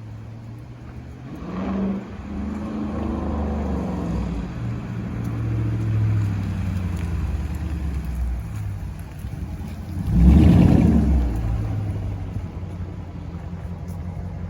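Hemi V8 car engine running as the car drives off down the street, with a surge of acceleration about two seconds in and a louder one about ten seconds in.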